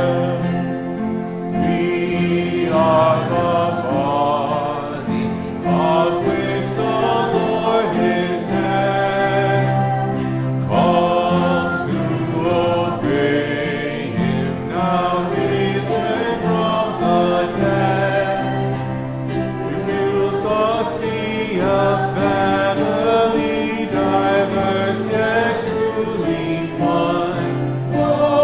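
Congregation singing a hymn together with instrumental accompaniment, phrase by phrase with short breaths between lines.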